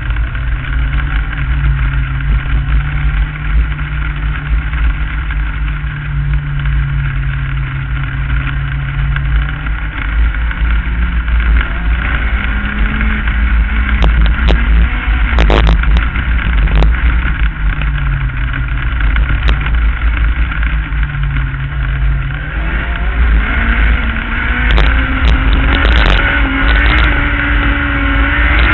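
Onboard sound of a non-wing Lightning Sprint race car's engine running hard on a dirt track, its pitch rising and falling with the throttle through the turns and climbing steadily near the end, over a heavy rumble of wind on the microphone. A few sharp clicks come midway and again near the end.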